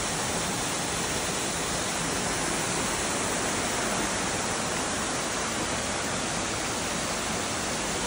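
Steady, even rush of a waterfall and the stream cascading over rocks below it.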